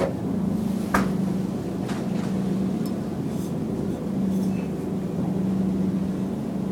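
Wire shopping cart rolling over a tiled floor: a steady low rumble from the wheels that fades and returns, with a sharp rattle about a second in.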